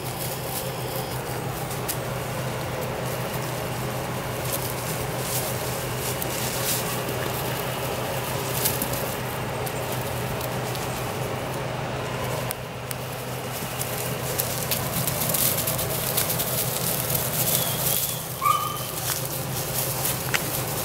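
Weimaraner puppies scampering through dry wood-chip mulch and leaves, a continual patter of small crackles and rustles from their paws, over a steady low hum. A brief high squeak comes near the end.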